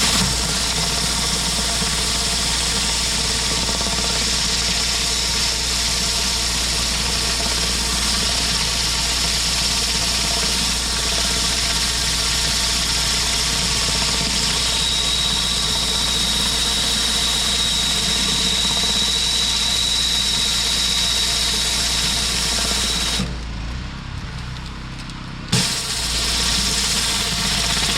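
Engine-driven pressure washer running steadily with the spray hissing. Near the end the spray cuts out for about two seconds, leaving only the engine, then comes back on with a knock.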